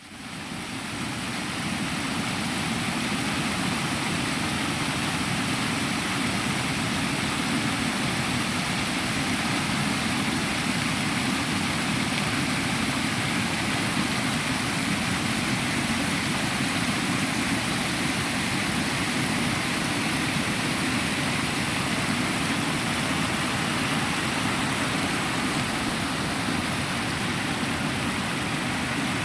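Flowing water rushing steadily, fading in over the first second.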